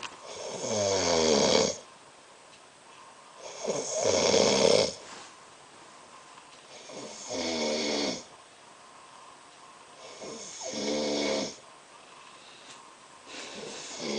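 A man snoring in his sleep: a loud snore about every three seconds, four in all, with a fifth starting near the end, and quiet breathing gaps between them.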